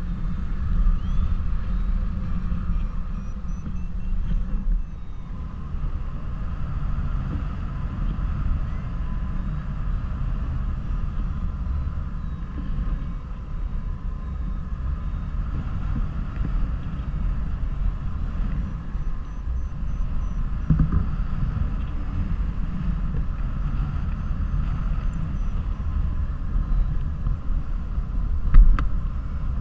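Airflow buffeting an action camera's microphone in paraglider flight: a steady low rumble of wind noise. There is a sharp knock near the end.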